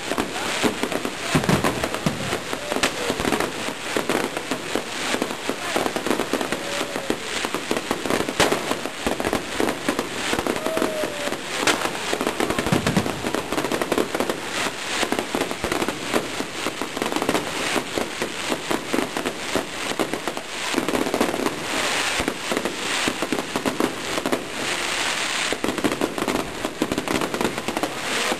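Fireworks display going off without a break: a dense run of bangs and crackles, with a few short whistling tones.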